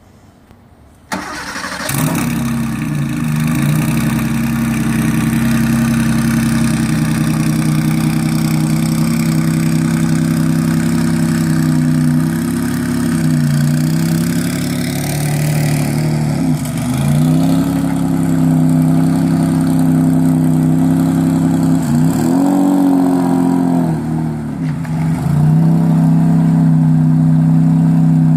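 Porsche 911 air-cooled twin-turbo flat-six cranking and catching about a second in, then idling with several short throttle blips.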